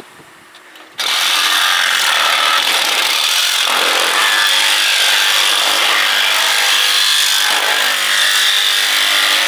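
Jigsaw cutting through a clear corrugated plastic greenhouse panel. It starts abruptly about a second in and runs steadily.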